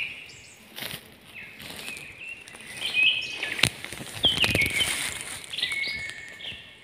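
Several wild birds call with repeated short whistled notes, some falling in pitch, over footsteps and a few sharp snaps of twigs on the forest floor.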